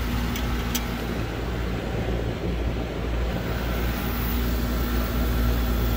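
Residential heat pump outdoor unit running in heating mode: a steady compressor and fan hum, heard up close through the open service panel. The unit keeps running rather than pumping down, with its restricted TXV external equalizer tube repaired by pinching off.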